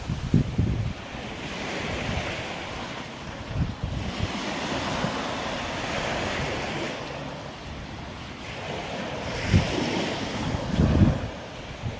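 Small surf washing onto the beach, swelling and easing every few seconds. Gusts of wind buffet the microphone in short low thumps, strongest about a second in and near the end.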